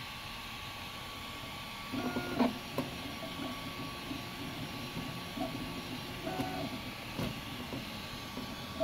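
Ultimaker 3D printer's stepper motors whining in short pitched runs as the print head moves, starting about two seconds in, with a few light clicks. Under it a steady hiss with a faint high tone.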